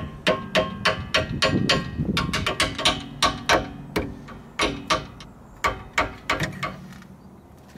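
Hammer striking a punch, sharp metallic taps with a short ring, several a second, driving the brake pad retaining pins into a Volvo brake caliper. The tapping stops near the end.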